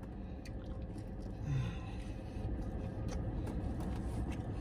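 Steady low rumble inside a parked car's cabin, with a few faint clicks and a brief low sound about one and a half seconds in.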